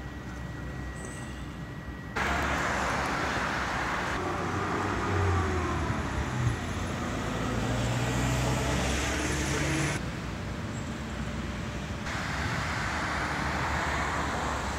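Road traffic noise, with vehicles passing and pitch rising and falling in the middle. The sound changes abruptly about two seconds in, again about ten seconds in, and once more a couple of seconds later.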